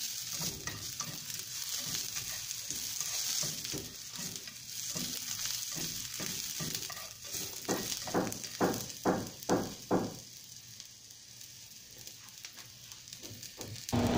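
Onion slices sizzling as they fry in a thin film of oil in a skillet, with stirring noises as they are pushed around. Around the middle comes a quick run of about five louder strokes, and after that the sizzle goes quieter.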